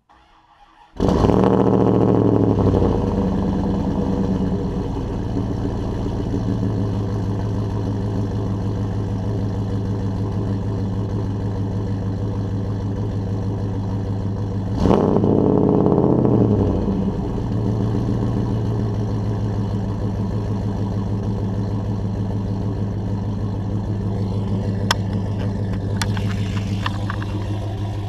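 Cold start of a 1998 Dodge Durango's custom-built 5.9-litre V8, heard at the exhaust: it catches about a second in, runs loud at first, then settles into a steady idle. About halfway through, the engine speed and level rise and fall briefly before it returns to idle.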